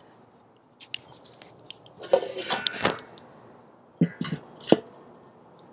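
Enamelled steel lid of a Weber kettle grill being set down onto the bowl: a rattling metal clatter lasting about a second, then a few lighter knocks and sharp clicks as the lid is settled by its handle.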